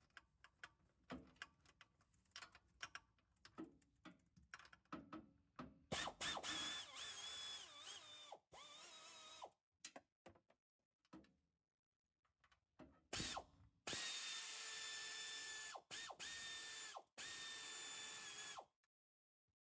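Ratchet clicking in quick strokes as the 10 mm transmission pan bolts are turned out. Then a small power tool's motor whines steadily in two stretches of a few seconds each, starting about six and about thirteen seconds in.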